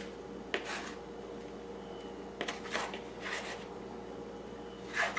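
Faint rubbing and light clatter of raw chicken pieces being worked in flour in a dish: a handful of short, soft strokes over a low steady hum.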